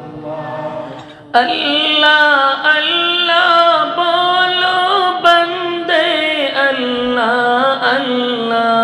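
A man's voice chanting a devotional zikr in long, drawn-out melodic notes with wavering pitch. A softer phrase trails off at the start, then a loud new phrase comes in suddenly about a second and a half in.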